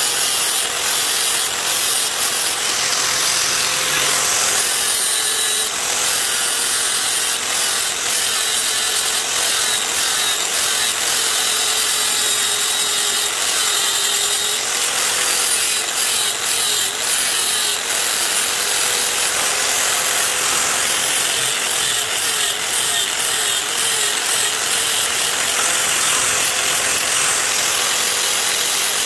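Angle grinder with an abrasive disc running and grinding down a weld bead on aluminium. The motor's steady whine sags and wavers a little at times as the disc is pressed onto the metal.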